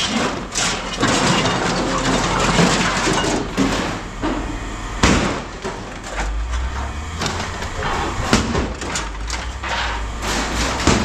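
Scrap metal parts clanking and knocking as they are handled and tossed while being sorted, with one loud clank about five seconds in. A low steady rumble joins from about six seconds in.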